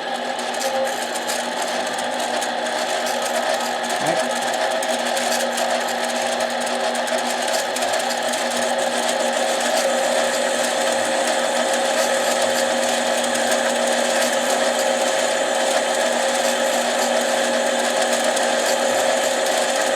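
Small lathe running steadily while a cut is fed slowly across a chainsaw piston's crown, machining the pop-up down for squish clearance; the hum grows a little louder toward the end.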